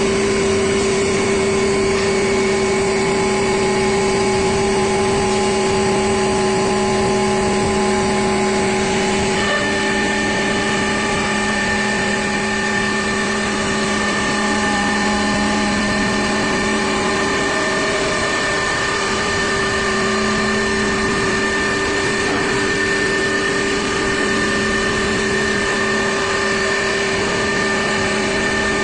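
CNC wood router running, a loud, steady machine whine made of several held tones. The higher tone changes to a slightly lower one about nine seconds in.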